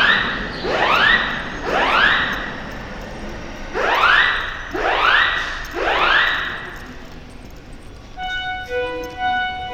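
Building fire alarm sounding its rising whoop tone, the signal that comes before the voice message announcing the fire: two groups of three rising sweeps about a second apart. Near the end a short run of chime notes at several pitches sounds.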